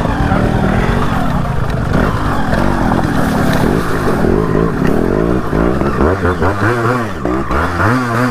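Two-stroke Yamaha RX motorcycle engine running under way, revving so that its pitch rises and falls over and over, the swings growing quicker and sharper in the second half.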